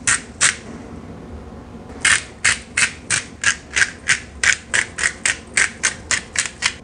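Black pepper grinder being twisted by hand, each twist a short gritty crunch of peppercorns being ground: two twists, a short pause, then a steady run of about three twists a second.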